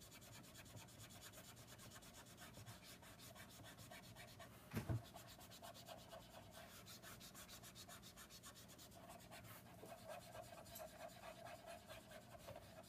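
Faint rubbing of a Copic alcohol marker's brush nib stroked across paper, with one short soft knock about five seconds in.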